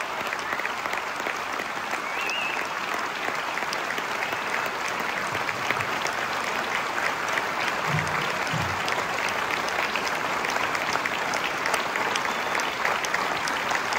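Concert audience applauding, a steady dense clatter of clapping, with two brief low thumps about eight seconds in.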